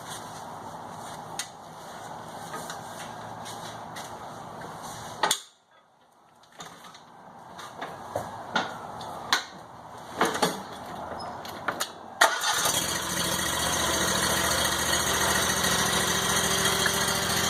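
A Ferris F60Z zero-turn mower's engine is started about twelve seconds in and then runs steadily. Before that there are several clicks and knocks, and before those a steady hum that cuts off suddenly.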